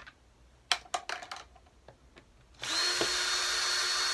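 Cordless drill driver with a screwdriver bit running steadily for about two seconds with a high, even whine, backing out an air filter cover screw. A few light clicks of handling come before it, about a second in.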